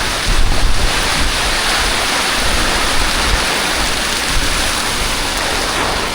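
Heavy rain and running water making a steady rushing hiss, with wind buffeting the microphone in low rumbles that gust hardest about half a second in.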